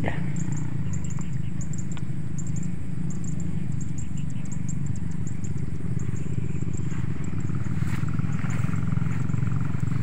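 A steady, low, even rumble like a running engine, with faint high-pitched ticking over it.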